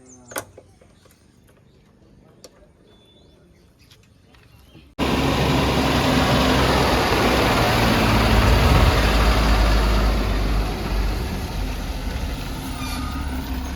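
A heavy vehicle's diesel engine running close up, with a steady low drone under loud noise. It cuts in abruptly about five seconds in, after a quiet stretch with a few faint clicks.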